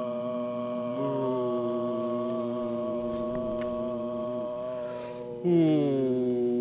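Layered male voices chanting a long held drone note. A second voice slides in about a second in, and a louder note enters near the end and slides down in pitch.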